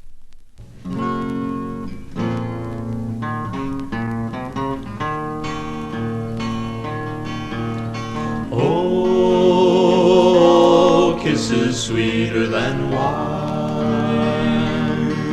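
Song intro on acoustic guitar, picked and strummed, joined about eight seconds in by louder held singing with vibrato.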